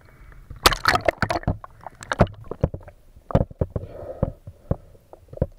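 Water splashing and sloshing in a run of irregular sharp splashes, thickest in the first couple of seconds.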